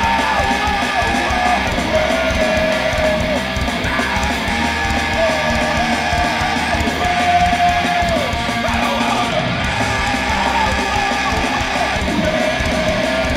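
Hardcore band playing live and loud, with distorted electric guitars, bass and drums carrying on through an unsung stretch of the song.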